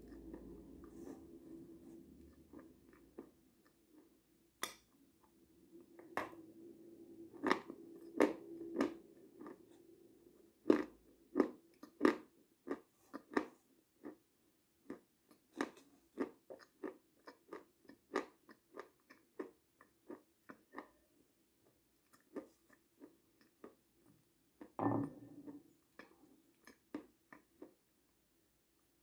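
Close-miked mouth sounds of eating yogurt: irregular wet smacks and clicks of lips and tongue, a few a second, with one longer, louder sound near the end.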